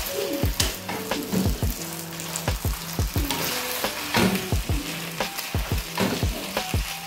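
Spaghetti, vegetables and meatballs sizzling in a frying pan while a wooden spoon stirs and tosses them, with short clicks and scrapes of the spoon against the pan.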